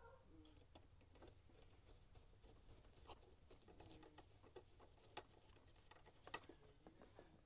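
Near silence broken by faint, scattered clicks and light taps, the small handling noises of an electric hot water dispenser's parts being fitted back together. The most distinct clicks come about three, five and six and a half seconds in.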